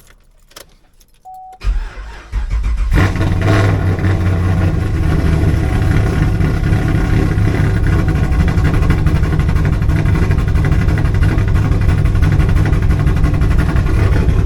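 Chevrolet Camaro's LS3 V8 cranked by the starter, catching after a second or so and settling into a loud, steady idle. The owner calls it still kind of a slow start, a leftover of the car's starting problem, which he is treating with an extra ground wire.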